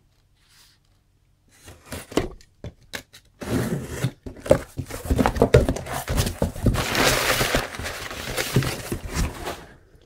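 A cardboard parcel being opened: a few soft clicks of a utility knife at the packing tape, then from about three seconds in a busy run of cardboard scraping and flaps being pulled open, with crumpled packing paper rustling, thickest about seven seconds in.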